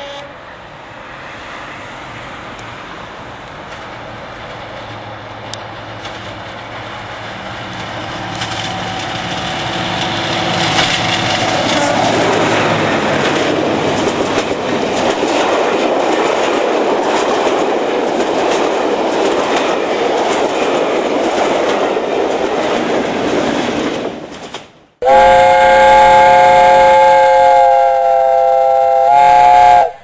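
Class 55 Deltic diesel locomotive 55022, with its Napier Deltic two-stroke engines, hauls a passenger train past. The sound builds from about eight seconds in to a loud rush of coach wheels clattering over the rail joints as the carriages go by. Near the end the train noise cuts off and a loud sustained chord of music plays for about five seconds.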